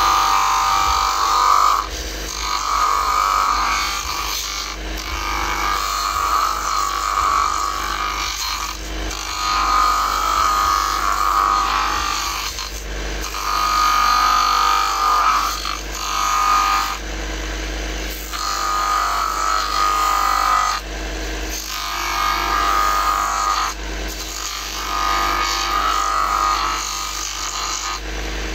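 Motor-driven grinding stone running steadily while a high-heeled shoe's heel is pressed against it to shorten it, giving a harsh grinding about eight times, each lasting two to three seconds, with short lulls between as the heel is lifted.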